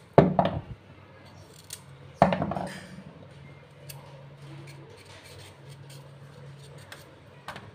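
A raw carrot being peeled by hand, the blade scraping along its skin in strokes. The two loudest strokes come near the start and about two seconds in, followed by quieter scrapes and small ticks over a faint low hum.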